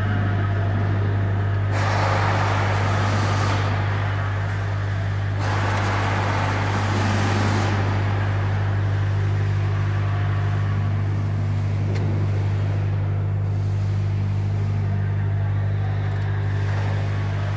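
Steady low hum of factory assembly-line machinery, with two louder stretches of rushing machine noise, one about two seconds in and one about five seconds in, each lasting around two seconds.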